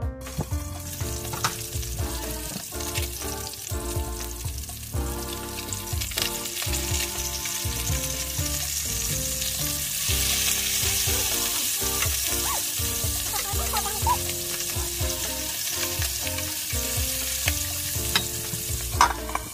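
Fish fillets sizzling as they shallow-fry in hot oil in a pan, the hiss swelling about halfway through, with a few light clicks. Background music plays underneath.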